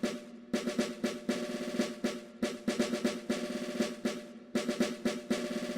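Background music with a repeating drum and snare pattern over sustained tones.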